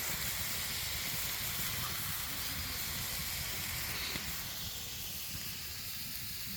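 A steady hiss, even from low to high pitch, holding at one level throughout.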